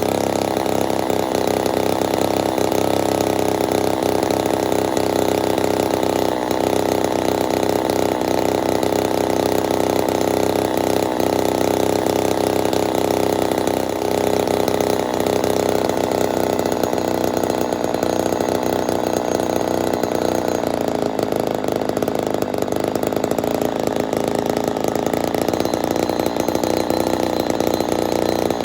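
Ported Poulan 245A two-stroke chainsaw running steadily and continuously.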